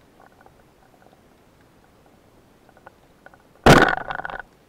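A band-powered speargun firing underwater: a sudden loud crack near the end, followed by a short ringing rattle.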